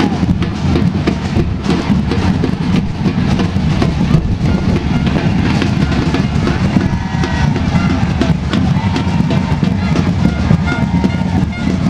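Music with loud, steady drumming, many drum strikes in quick succession.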